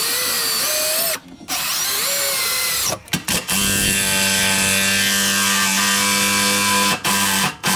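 Cordless power tool spinning a bolt on the truck's underside in several trigger pulls: a few short bursts, then a long steady run of about three and a half seconds, a brief stop and another short run.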